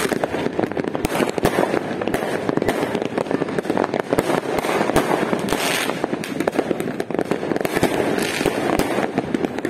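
Many distant aerial fireworks going off at once, a dense, unbroken rattle of overlapping bangs and pops.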